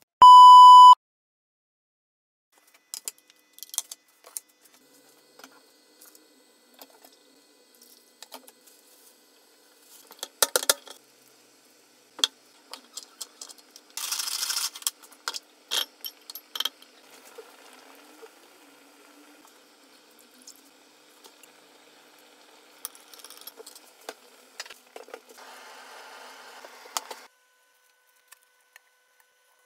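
A loud, short test-tone beep that goes with TV colour bars, then kitchen handling sounds: scattered clinks and knocks of glass bowls, a metal tray and utensils, with a brief rush of noise at the sink about halfway through.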